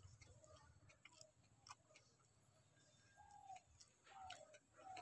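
Near silence: faint ticks of fingers working rice on a steel plate. A few faint bird calls come in the second half.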